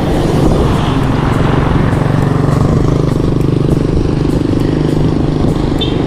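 A motor vehicle engine running steadily and loudly, with a constant low hum.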